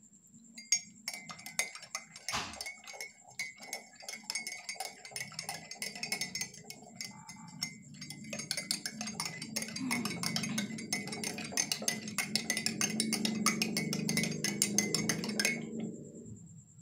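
A spoon stirring a glass of warm drink, clinking rapidly and repeatedly against the glass, with the swirl of liquid growing louder about halfway through. It stops shortly before the end.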